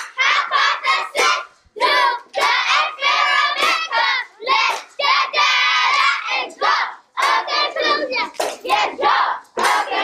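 A class of young children chanting the steps of the scientific method together in a rhythmic, sing-song group chant, with hand claps.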